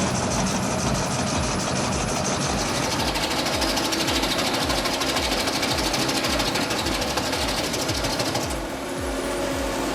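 A machine running with a rapid, even mechanical pulsing.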